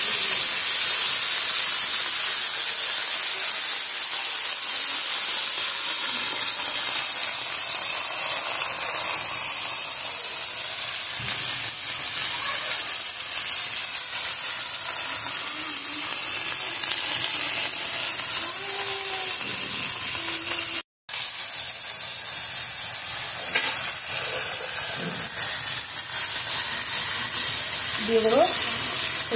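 Fresh ivy gourd (telakucha) leaves and potato sticks sizzling in hot oil in an aluminium kadai, stirred with a metal spatula; a steady hiss that breaks off for a moment about two-thirds of the way through.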